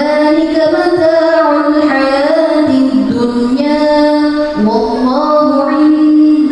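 A young woman's melodic Qur'an recitation (tilawah), sung into a microphone: long held notes that glide up and down in pitch, with brief pauses for breath.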